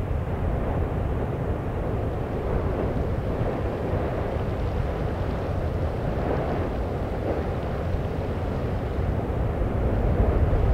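Deep, steady rumble of an erupting Icelandic volcano and its lava flow: a continuous noisy roar with no distinct knocks or tones, growing a little louder near the end.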